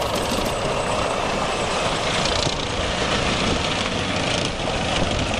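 A muddy toy tank being washed clean: a steady, even rushing noise.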